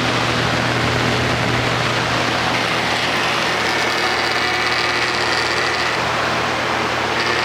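1980s Edison Thin & Light box fan running on high: a steady rush of air over a low motor hum, with a rattle from its loose speed-control knob.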